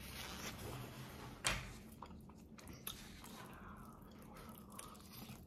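A person chewing a fried chicken tender with faint wet mouth sounds and a sharp click about a second and a half in.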